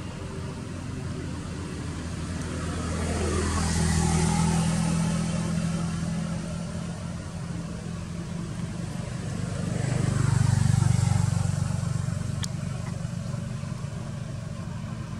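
Motor vehicles going past: a steady engine hum that swells and fades as one passes about four seconds in and another about eleven seconds in.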